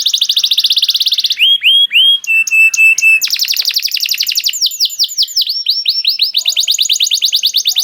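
Domestic canary singing a rapid song of fast rolling trills of repeated down-sweeping notes. About a second and a half in, the trill breaks for a few slurred whistles and a short run of steady notes, then a louder dense trill starts and slows, and a fast trill closes the window.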